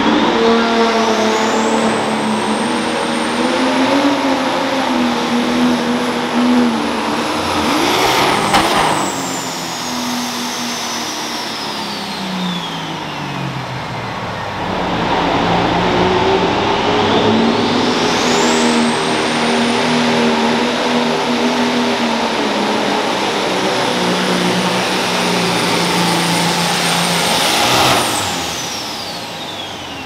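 Two pulling tractors making full-power runs one after the other. Each time the engine runs hard under load with a high whine that climbs quickly and holds. Then the run is cut off sharply, with a brief crack at the first cut, and the whine slowly falls away as the engine winds down.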